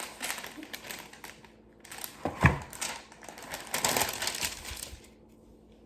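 Parchment paper rustling and crinkling as it is handled, in two stretches, with a dull thump about two and a half seconds in.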